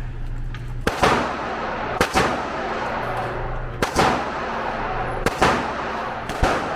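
Glock 23 .40 S&W pistol being fired, about five or six shots spaced roughly one to one and a half seconds apart, each followed by a short echo.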